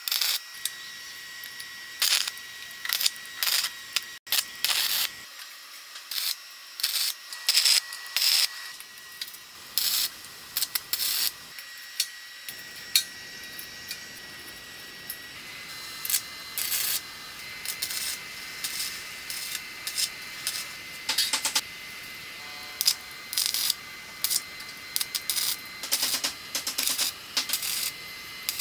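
Stick welding arc crackling in many short bursts as tack welds are struck on square metal tubing, each burst starting and stopping abruptly. A faint steady high tone runs underneath.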